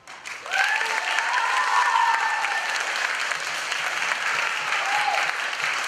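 Audience applause breaking out as the dance music ends, rising quickly and holding steady, with a few voices calling out over the clapping in the first couple of seconds.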